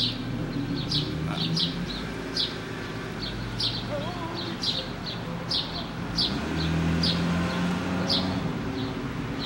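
Birds chirping repeatedly over the low, steady running of a straight-piped BMW E36's engine as the car pulls slowly away, its note rising a little near the end.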